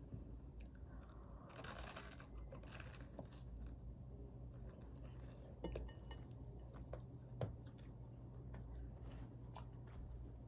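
A slice of toast set down on a glass plate and handled, with crisp rustling of the bread and a few sharp taps on the glass, loudest at two clicks in the middle.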